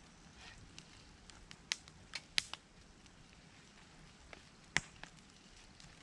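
Wood fire crackling, with a few sharp pops: two or three close together about two seconds in and a loud one near the end.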